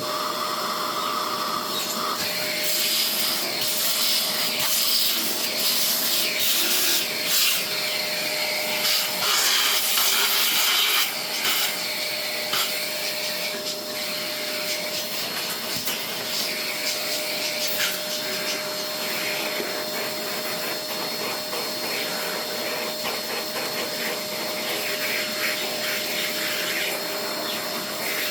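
Vacuum cleaner running steadily with a constant whine, with irregular scratchy rubbing noises on top that are busiest in the first third.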